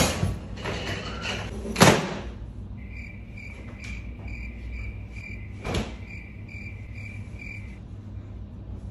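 Crickets chirping, a run of even chirps lasting about five seconds: the stock sound effect for an awkward silence. Before it come two thumps in the first two seconds, and there is a single knock partway through.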